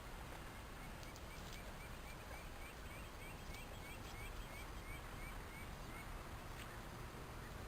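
Guinea pig squeaking: a faint run of about fifteen short, high chirps, roughly three a second, starting about a second in and stopping about six seconds in, over a steady hiss.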